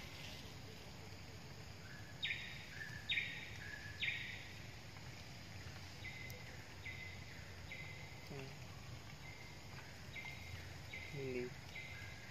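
Forest ambience: insects buzzing in repeated spells of about half a second to a second each, over a steady background hiss.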